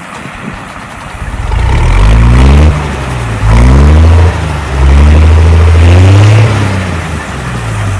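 An engine revving three times: each rev climbs in pitch and is held for a second or more before dropping back, and the last one falls away near the end.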